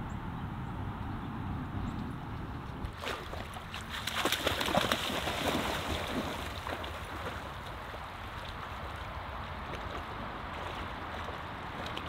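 Shallow river water running and gurgling over stones, with a dog splashing through the water about four seconds in.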